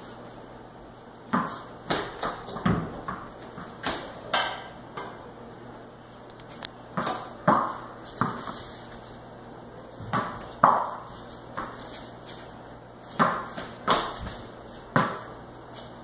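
Rackets hitting a ball back and forth in a rally, each hit paired with the ball bouncing on a concrete floor. Sharp, short strikes come every second or two, some with a brief ring.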